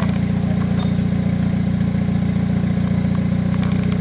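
Off-road 4x4's engine idling steadily, with a few faint clicks over it.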